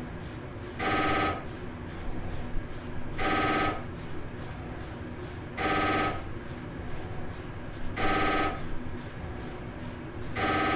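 Telephone ringing in short buzzing bursts of about half a second, repeating evenly about every two and a half seconds: four rings, with a fifth starting near the end.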